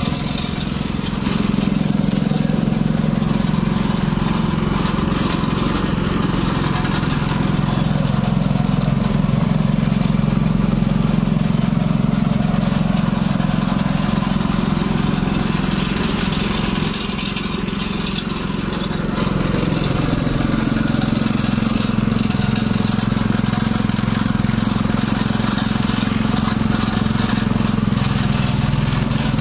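Traditional sugarcane-juice crushing machine running, its powered vertical rollers pressing sugarcane stalks with a steady engine-like drone. The drone drops briefly a little past halfway, then picks up again.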